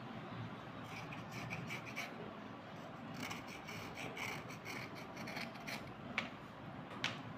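Wet slate pencils being rubbed clean by hand over a bowl of water: runs of quick, scratchy rubbing strokes, with two sharp clicks near the end.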